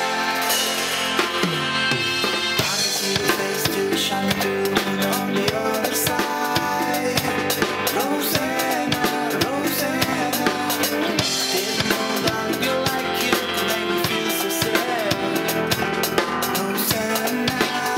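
Classic rock band playing a song, with a drum kit keeping a steady beat under the melody.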